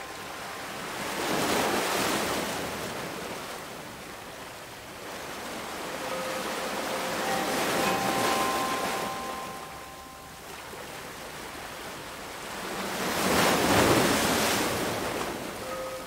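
Ocean surf: waves wash in three slow surges, the loudest near the end. A few soft, held chime tones ring in the middle.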